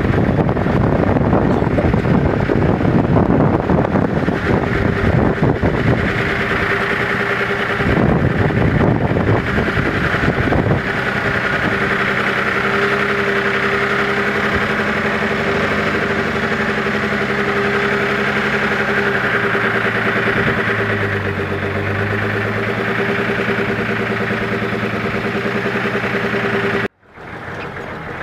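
Toyota Land Cruiser HDJ80's turbodiesel straight-six running as the truck drives slowly over a muddy track. Rough noise covers the first ten seconds or so, then a steady engine drone. The sound cuts off abruptly about a second before the end.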